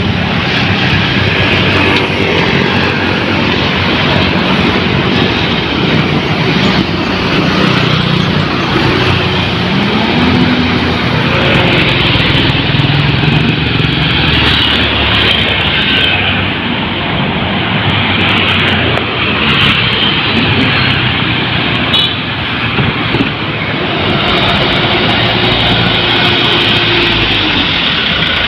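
Loud, continuous road traffic, with buses and other vehicles passing close by: engines running and tyres on the road, with some rises and falls in engine pitch.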